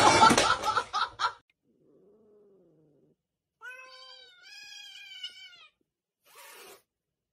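A loud burst of clatter and commotion in the first second. After it, a domestic cat yowls in two drawn-out, slightly rising meows about four and five seconds in.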